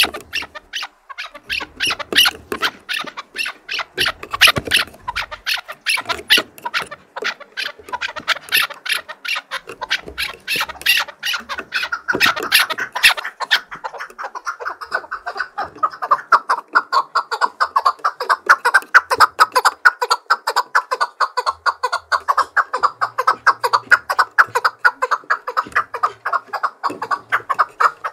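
Chukar partridge calling loudly: a long run of sharp, repeated chuk notes that settles about halfway through into a fast, even chatter.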